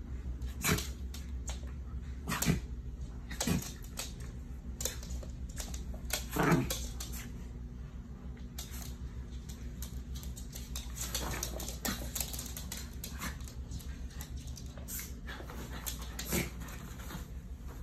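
Two small dogs, a maltipoo and a poodle, tussling over a dog bed and blanket, making short dog noises at irregular intervals. The loudest comes about six and a half seconds in.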